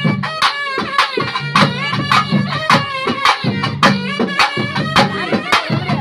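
Traditional festival music: drums struck in a fast, steady beat of about four strokes a second, under a reed-like wind instrument playing a wavering, bending melody over a low sustained drone.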